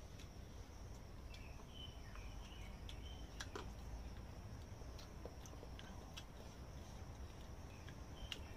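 Steady high-pitched insect drone, with short bird chirps now and then and a few small clicks of people eating from meal boxes with spoons.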